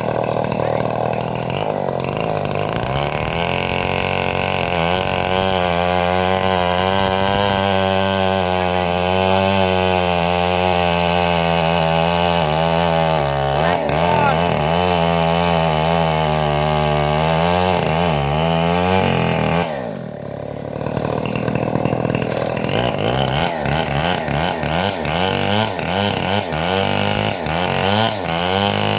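Homemade bandsaw sawmill running continuously while sawing trembesi (rain tree) timber, a steady machine drone whose pitch wavers under load. It dips briefly about two-thirds of the way through, then picks up again more unevenly.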